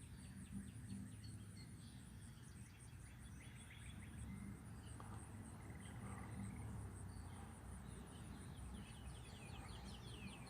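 Faint outdoor insect chorus: a steady, high-pitched pulsing trill of crickets or similar insects, with runs of quick bird notes from distant songbirds coming and going over it and a low rumble beneath.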